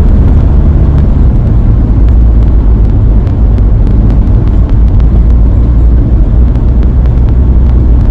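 Campervan driving at road speed: a loud, steady low drone of engine and road noise, with scattered faint ticks.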